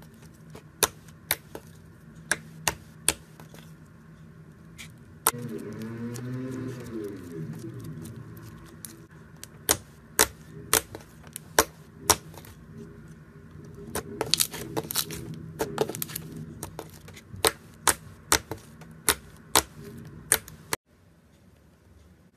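Slime being folded, poked and kneaded by hand, giving irregular sharp clicks and pops as trapped air bursts, over a softer squishing sound that swells in two longer stretches.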